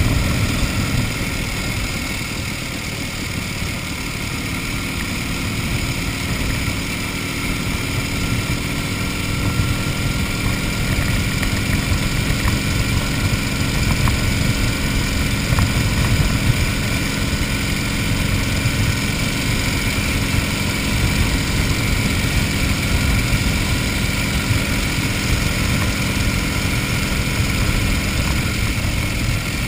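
1931 Indian 101 Scout's flathead V-twin engine running steadily in third, its top gear, as the motorcycle cruises along the road.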